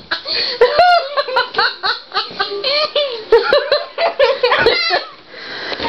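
A girl laughing hard in high-pitched giggles and squeals, with sharp pitch swoops.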